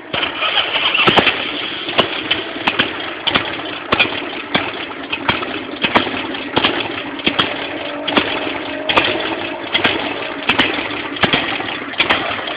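Harley-Davidson Sportster 883's air-cooled V-twin engine starting and then idling. A sharp crack comes about every two-thirds of a second over the steady running.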